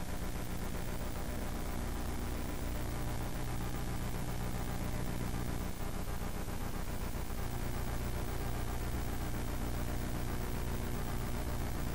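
Steady low hum under an even hiss: the room and sound-system background noise of a quiet chamber.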